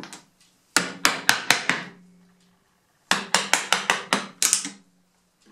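Wooden mallet striking a 6 mm chisel to chop out a slot in wood: two quick runs of sharp taps, about four a second, with a pause of about a second between them.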